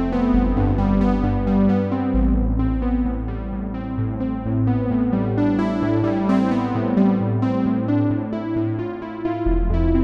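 Arturia PolyBrute analog polysynth playing chords over held bass notes. Each chord starts bright and fades.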